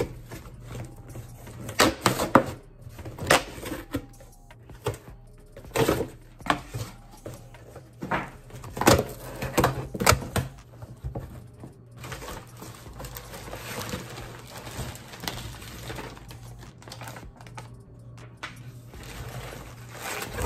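Cardboard box flaps being pulled open and green plastic air-pillow packing being rummaged through and pulled out. The result is a run of irregular sharp crackles, taps and rustling.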